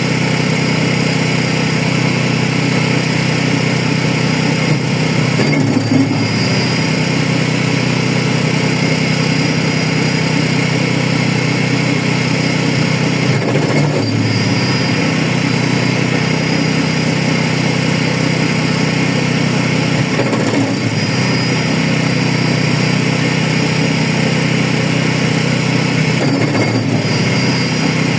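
Wood chipper running steadily, its engine note briefly dipping and recovering about every seven seconds.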